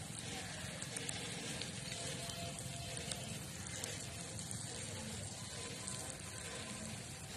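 An egg sizzling as it fries in a paper bag over hot embers: a steady hiss with small scattered crackles.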